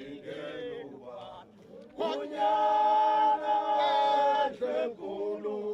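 Voices singing a chant, with one long held note starting about two seconds in.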